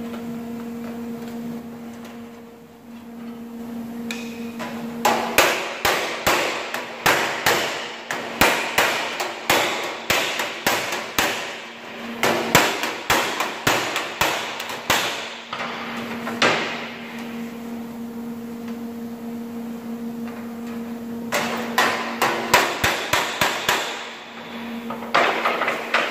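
Hammer blows on the rusty sheet-steel bonnet of a 1937 Chevrolet truck, about three a second, in two runs: one starting about five seconds in and lasting some ten seconds, and another shorter one near the end. A steady hum fills the pauses.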